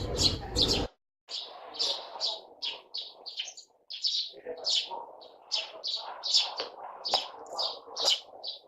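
Sparrows chirping in a steady run of short chirps, two or three a second. About a second in, the sound cuts out briefly and a low background rumble drops away.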